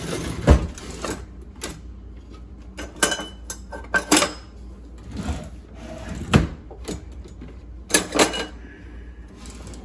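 Wooden kitchen drawers being pulled open and knocked shut while metal utensils and kitchenware clatter inside as someone rummages through them: a string of separate knocks and clinks, some with a brief metallic ring.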